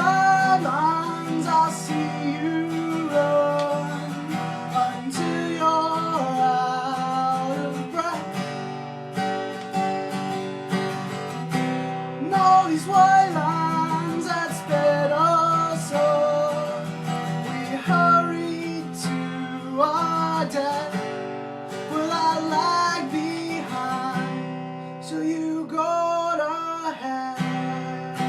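Acoustic guitar strummed as a steady song accompaniment, with a higher melody line sliding between notes above it.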